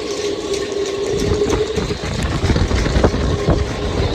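Hurricane wind rushing through a marina and buffeting the microphone, the low rumble growing stronger about a second in, with scattered knocks of halyards slapping against sailboat masts. A steady tone rings through the first second and a half, then fades.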